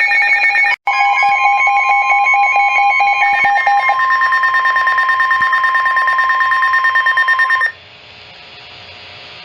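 NOAA Weather Radio warning alarm tone: a loud, steady 1050 Hz tone, with a second tone beeping rapidly over it for the first four seconds. The tone cuts off near the end, leaving faint radio hiss.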